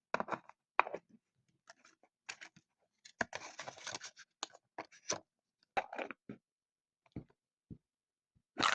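Fidget toys being handled and set down: scattered light clicks and taps, with a short scratchy rustle about three seconds in.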